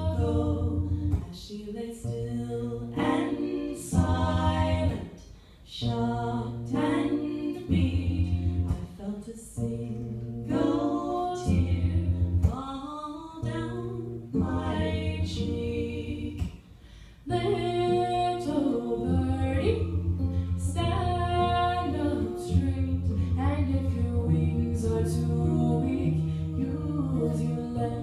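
A woman singing a slow song live with acoustic guitar accompaniment, phrases of held notes with short breaks between them, heard from the audience seats in a theatre.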